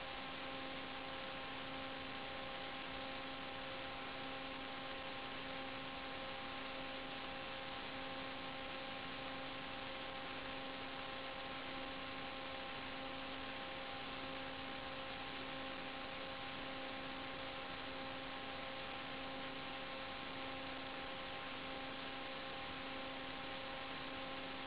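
Steady electrical hum over an even hiss, carried on the audio channel of an analog FPV video feed; the landed quadcopter's motors are not heard.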